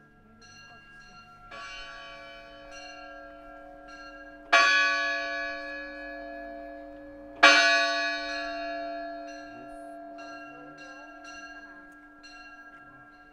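Monastery church bells rung by hand: two loud strokes about three seconds apart, with lighter strokes before, between and after. Each tone rings on and slowly fades.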